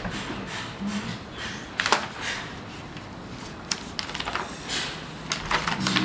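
A few sharp knocks and clicks over steady background noise, the loudest about two seconds in and a cluster near the end.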